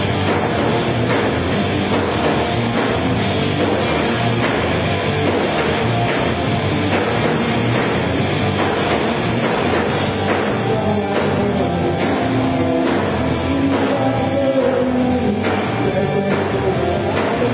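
Rock band playing live with electric guitars, bass guitar and drum kit, loud and steady throughout.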